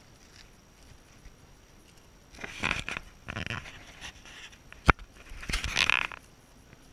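Two bursts of rustling and scuffing from walking with a small dog on a leash, with one sharp click between them.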